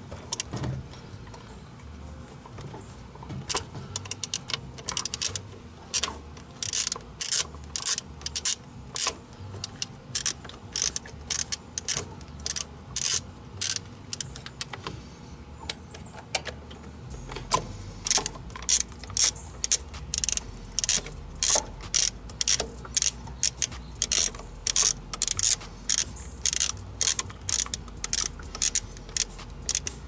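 Socket ratchet clicking in short runs, then steadily at about two clicks a second near the end, as the bolts of a new thermostat housing are snugged down a little at a time, side to side, to seat the gasket evenly.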